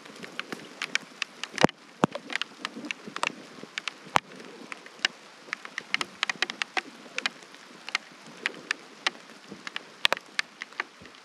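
First heavy raindrops of a shower striking the camera, heard as scattered sharp ticks, several a second at irregular intervals, over a faint hiss.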